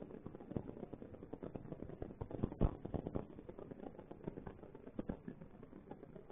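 A mouse scrabbling and scurrying on a plastic humane trap, its claws making irregular small clicks and scratches, with one louder knock about two and a half seconds in.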